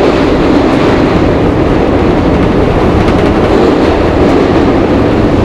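SEPTA Market-Frankford Line M4 subway car running between stations in the tunnel, heard from inside the car: a loud, steady rumble of wheels on the rails.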